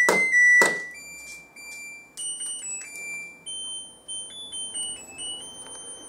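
LG True Steam direct-drive washing machine playing its end-of-cycle tune: a short melody of electronic beeps stepping up and down in pitch, signalling that the wash is done. Two sharp clicks in the first second are the loudest sounds.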